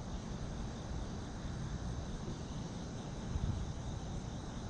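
Night outdoor ambience: a steady low rumble with a faint, continuous high insect trill running through it.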